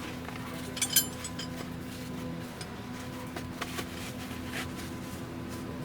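A few sharp metallic clinks about a second in, followed by scattered lighter ticks, over a steady low hum.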